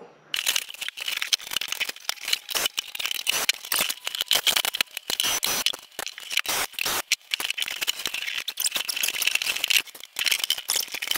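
Dense, irregular clicking and rattling of hand tools and wooden floor panels being unscrewed and lifted from a boat's cabin floor, with a brief pause about ten seconds in.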